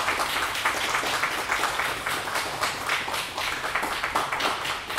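A small audience applauding, a steady patter of many hand claps.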